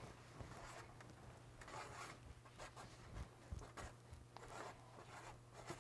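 Faint scratching of a marker pen drawing on a sheet of paper, in short, irregular strokes over a low steady hum.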